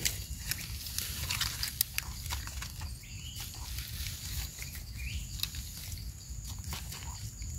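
Hands picking egg-stage Amanita mushrooms from dry leaf litter and soil and scraping dirt off their bases with a small knife: light crackling and rustling with many small scattered clicks.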